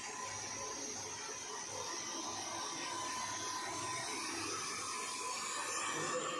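Handheld hair dryer blowing steadily on wet hair: a constant rushing hiss with a faint steady whine.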